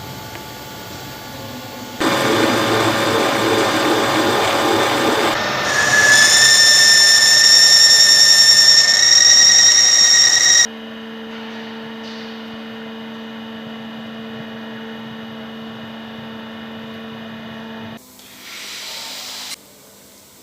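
Machine tool cutting metal while boring a small drive coupling: noisy cutting about two seconds in, turning to a loud high-pitched squeal of the cut for several seconds. It then runs on more quietly with a steady hum before stopping near the end.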